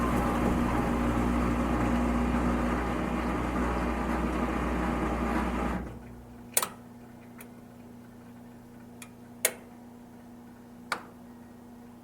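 Washing machine running with a steady mechanical noise and hum that cuts off abruptly about six seconds in. After that a faint low hum remains, with several sharp clicks.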